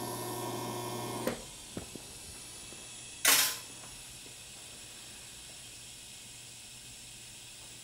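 TIG welding arc humming steadily for about a second as the tack is finished, then cutting off with a click. After that a faint steady hiss with a few small clicks, and a short loud burst of hiss about three seconds in.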